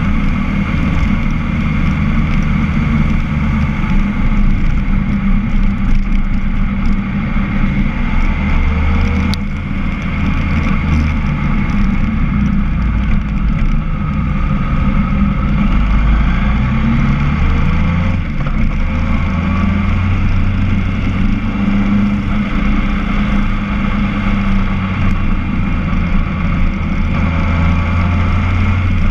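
Motorcycle engine running at road speed under a steady rush of wind, heard from a camera mounted on the bike.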